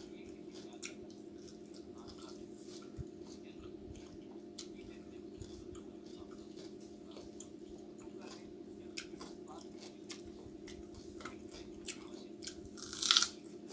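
Close-up eating sounds from a man eating chicken with his fingers: wet chewing and small mouth clicks throughout. Near the end comes one loud, sharp crunch as he bites into a piece of raw onion. A steady low hum runs underneath.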